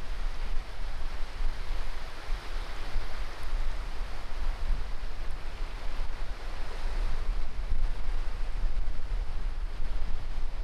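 Small waves breaking and washing up a sandy beach: a steady hiss of surf that swells and eases, with wind rumbling on the microphone underneath.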